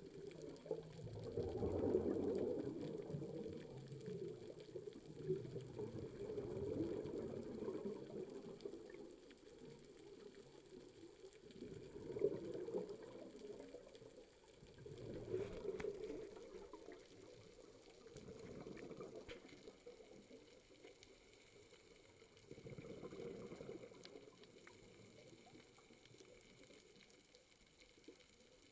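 Scuba diver's exhaled breath bubbling out of the regulator, a gurgling swell of bubbles about every three to four seconds, heard underwater and muffled, growing fainter near the end.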